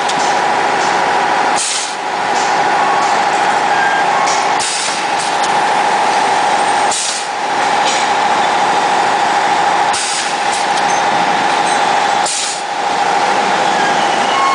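BG60A-6C pneumatic cup fill-seal-cut machine running: a steady whine, broken every two to three seconds by a sharp hiss and clack as the air-driven sealing and cutting heads cycle.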